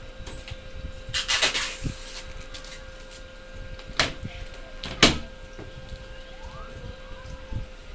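Unboxing handling noises: a short scraping rustle about a second in, then two sharp clacks about a second apart, over a steady faint hum.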